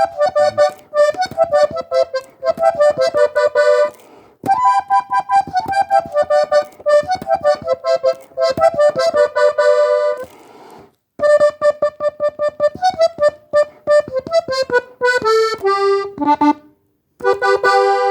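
Diatonic button accordion tuned in G playing a cumbia melody in fast runs of short notes, in phrases broken by brief pauses.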